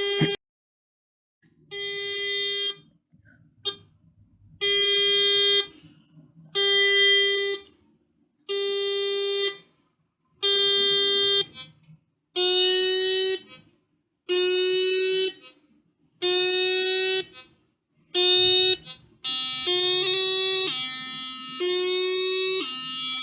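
Seven-transistor alarm circuit sounding its twelfth alarm pattern: a buzzy, steady beep about a second long, repeating roughly every two seconds. About 19 seconds in, the pattern changes to a continuous two-tone warble that steps between a higher and a lower pitch about once a second.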